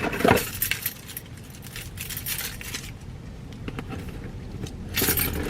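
Small belongings being handled and shuffled, with light clinks and rustles; a cluster of louder clicks just after the start and another near the end.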